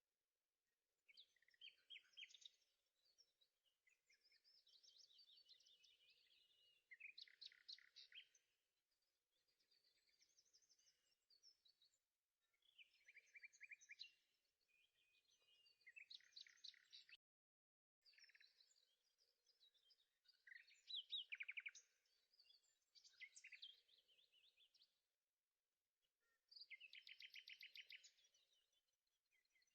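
Faint songbirds singing: a run of chirping phrases and rapid trills, one after another with short pauses between them.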